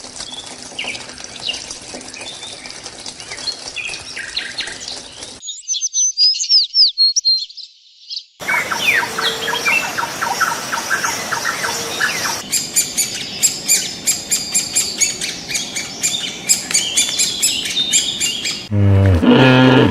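Bird calls and songs: a string of short recordings of chirping and twittering birds, cut abruptly from one to the next, one of them a fast, evenly repeated chirping series. Near the end a lower-pitched, different animal call cuts in.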